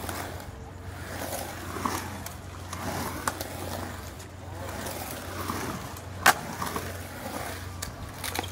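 Skateboard rolling back and forth on a ramp: the wheels rumble, and sharp clacks of the board cut in, the loudest about six seconds in.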